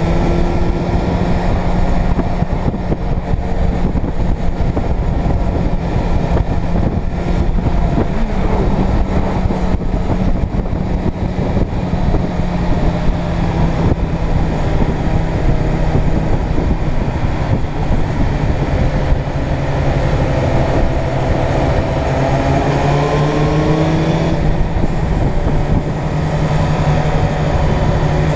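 A Suzuki Bandit 600 N's inline-four engine running at a steady cruise, heard onboard with wind noise. The revs rise a few times about twenty to twenty-four seconds in.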